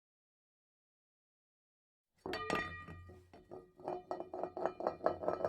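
Dead silence, then a little over two seconds in, music cuts in abruptly: ringing, clinking struck notes over a steady low bass tone.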